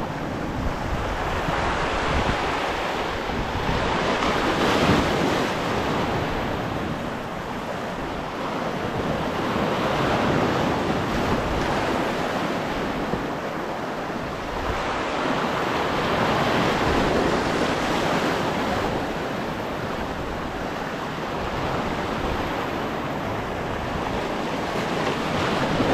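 Sea surf washing over and draining off shoreline rocks, swelling in surges every five or six seconds.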